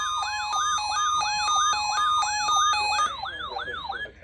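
Electronic emergency siren: a fast yelping sweep repeating about three times a second, layered with steady alert beeps that switch between two pitches. The beeps stop about three seconds in, and the sweeping siren cuts off about a second later.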